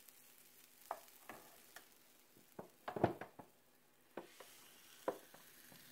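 Waffle batter sizzling inside a closed electric waffle iron, with a scattering of short sharp pops and crackles, the loudest cluster about three seconds in.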